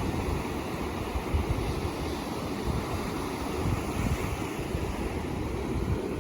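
Ocean surf washing steadily, with wind rumbling unevenly on the microphone.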